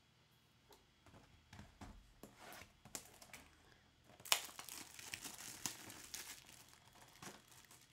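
Plastic shrink-wrap being torn off a trading-card hobby box and crumpled in the hands: scattered crinkles at first, then a sharp tear about four seconds in followed by steady crinkling.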